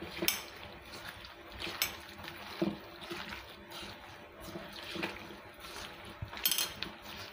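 A hand squishing and mixing a wet mixture of fish, coconut paste and water in an iron kadai, a soft wet squelching with a few light clicks and clinks against the pan.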